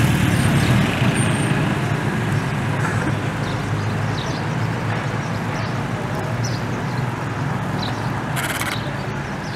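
Street traffic noise: a steady low rumble of vehicle engines, with a short hiss about three-quarters of the way through.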